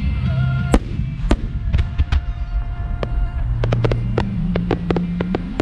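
Aerial fireworks bursting with sharp bangs, a handful spread over the first few seconds, then a rapid run of crackling reports near the end, with music playing underneath.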